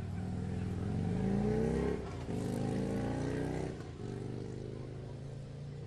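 A motor vehicle's engine accelerating: its pitch rises for about two seconds, drops briefly as it shifts gear, then rises again before settling into a steadier, quieter hum near the end.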